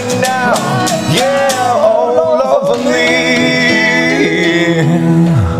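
Acoustic guitar strumming under a wavering, twanging melody made at the mouth, which gives way about halfway through to a held, ringing chord.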